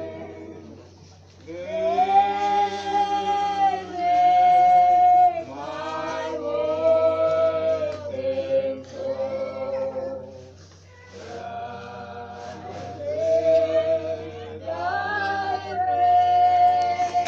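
A group of voices, men and women together, singing slowly without accompaniment: long held notes in phrases with short breaths between them. A steady low hum runs underneath.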